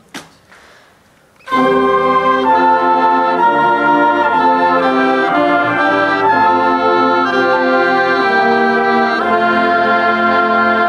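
School concert band of woodwinds and brass comes in about a second and a half in and plays sustained chords together, the chord changing every half-second to a second. It is a rehearsal run-through of a passage starting at measure 4. A single sharp click sounds just before the band enters.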